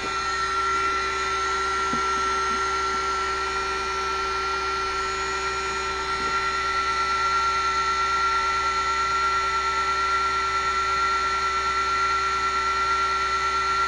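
Huanyang water-cooled CNC spindle running at constant speed on its VFD: a steady high-pitched whine with a lower hum beneath it.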